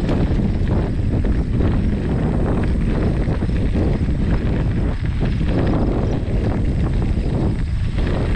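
Wind buffeting the microphone of a camera riding on a moving bicycle: a heavy, gusting rumble that stays loud throughout.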